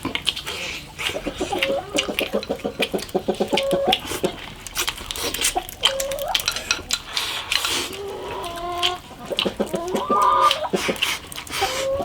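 Chickens clucking and calling, with runs of quick pulsed clucks and a few drawn-out calls, among scattered sharp clicks.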